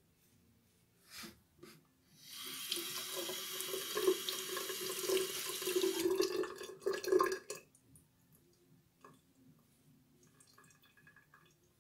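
Bathroom tap running into the sink for about five seconds while a safety razor is rinsed under it, with uneven splashing near the end before the water is shut off. Two short knocks come about a second in.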